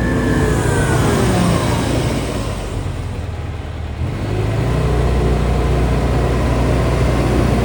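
Hitachi ZX170W-5B wheeled excavator's diesel engine running. Its pitch falls over the first second and a half and eases off briefly, then it runs steadily harder from about four seconds in.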